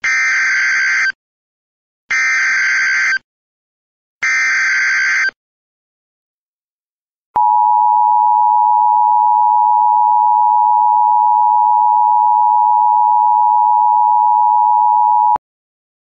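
Emergency Alert System signal for an Emergency Action Notification: three one-second bursts of the digital SAME header's warbling data tones, about two seconds apart. After a pause of about two seconds comes the EAS attention signal, a steady two-tone 853/960 Hz alarm held for about eight seconds that cuts off suddenly.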